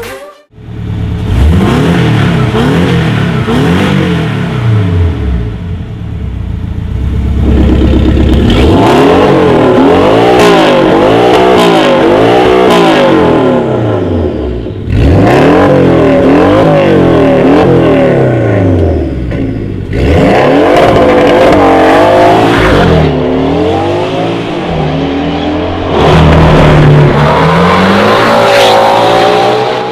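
Porsche 718's turbocharged flat-four engine through an Fi valvetronic catback exhaust with catless downpipe, loud, revved again and again in rising and falling sweeps. It breaks off abruptly several times between takes and ends with a long rise in pitch as the car accelerates.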